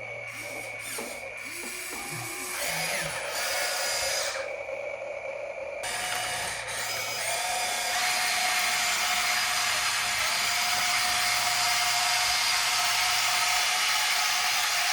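Electric motors and gears of a remote-control toy excavator whining as it works. The whine is uneven for the first few seconds, then steadier and louder from about eight seconds in.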